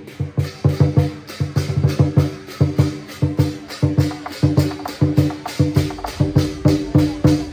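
Lion dance percussion: a big drum beaten in a fast, steady rhythm, about four to five strokes a second, with clashing cymbals and ringing metal on the beats.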